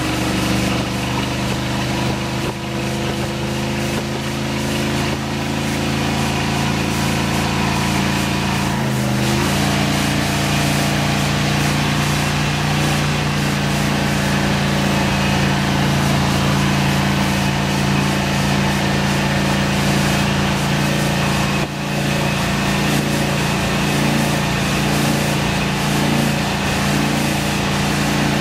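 The 8.2-litre MerCruiser V8 of a Sea Ray 250 SLX sterndrive boat running under way at speed: a steady engine drone over the rush of wake and wind. The engine note shifts about nine seconds in.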